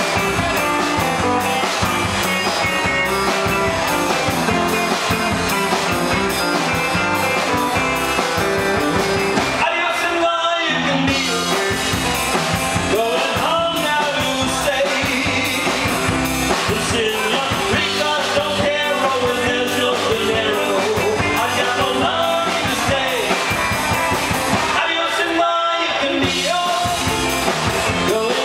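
Live rock band playing, with electric guitars, bass and drum kit, and singing coming in about twelve seconds in. The bass and drums drop out briefly twice, about ten seconds in and again near the end.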